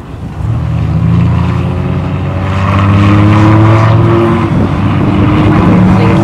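Lamborghini Gallardo's V10 engine accelerating hard past the camera, its note climbing steadily and changing pitch about four seconds in.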